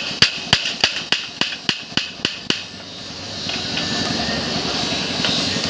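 A small hammer tapping the joint of a bandsaw blade clamped in a jointing jig: about ten quick, ringing metal-on-metal strikes about three a second, stopping about two and a half seconds in. A steady hiss then rises.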